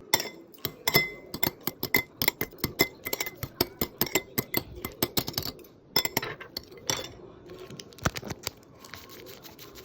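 Utensils clinking against dishware in a quick, irregular run of sharp clinks, several a second. There is a short break about six seconds in, and the clinks thin out and soften near the end.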